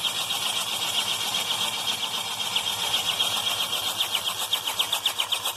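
BMW N47 four-cylinder diesel engine spinning on its starter motor without firing, with a rapid, even knocking on every turn that the owner calls a horrible knocking sound. The engine has just been overhauled and is being cranked without fuel, with the injectors fitted.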